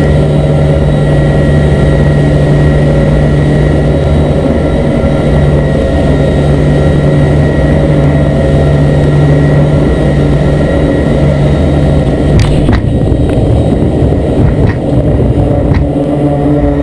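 Twin turboprop engines and propellers of a C-2A Greyhound droning steadily, heard inside the cockpit on final approach to the carrier. A few sharp knocks or clicks come through about twelve seconds in and again near the end.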